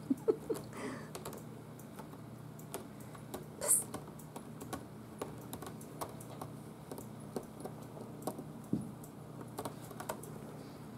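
Kittens' paws and claws tapping and scrabbling on a wooden floor and a carpeted cat tree: irregular light clicks with a louder scratchy scuffle about four seconds in.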